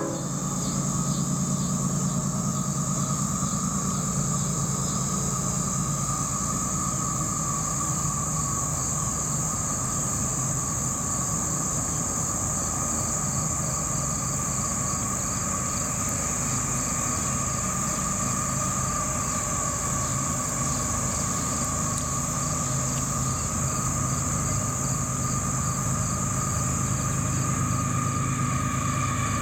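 A steady insect chorus, a high buzz with rhythmic chirping, over the low steady drone of a CSX ES44AH diesel locomotive's GE GEVO V12 engine as it approaches.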